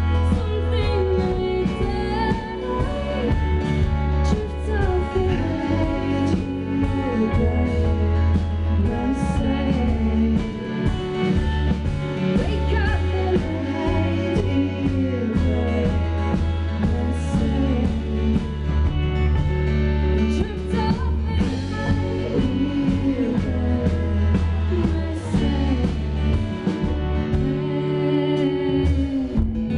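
Live band performance of a folk-pop song: a woman sings lead over strummed acoustic guitar, electric guitar, cello and drums, with a heavy low end.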